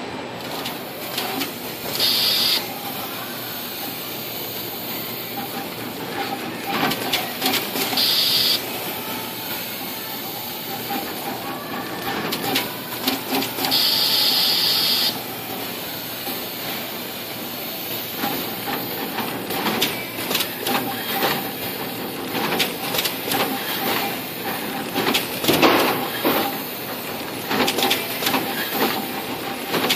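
SMT assembly machines running: a steady mechanical whir and rattle. Short hisses come three times in the first half, and rapid irregular clicking in the second half comes as the pick-and-place head works.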